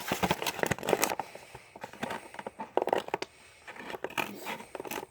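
Plastic and cardboard toy packaging being cut and pulled open, crinkling and crackling with many sharp clicks.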